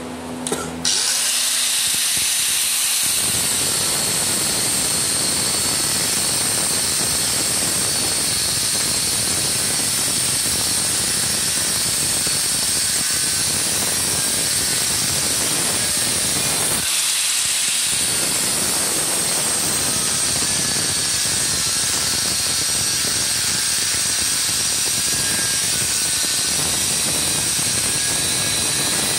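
Angle grinder spinning up about a second in, then its abrasive cutting disc cutting through a round steel bar, a steady high whine over a harsh grinding hiss. The cutting noise drops away briefly about two-thirds of the way through, and then the disc bites into the bar again.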